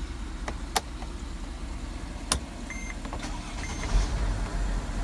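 A few clicks of a key in the ignition of a 2007 Mercedes/Dodge Sprinter and two short dashboard beeps, then the engine starts about four seconds in and runs at a steady low idle: the newly made key turns and starts the van.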